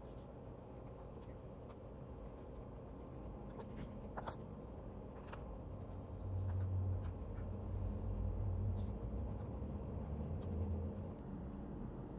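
Faint clicks and taps of disposable wooden chopsticks against plastic takeout containers during a meal, over a steady low hum. A louder low rumble comes in about halfway through and lasts several seconds.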